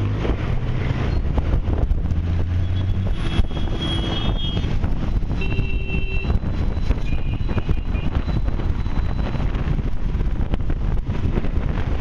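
Busy city road traffic heard from a moving vehicle: a steady wash of engines and tyres, with a low engine hum for the first few seconds. Vehicle horns beep three times, about three, five and a half and seven seconds in.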